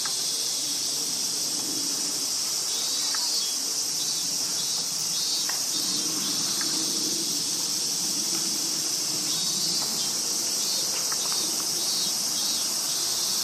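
A steady, high-pitched drone of insects calling, with a faster pulsing trill that comes in and fades out three times.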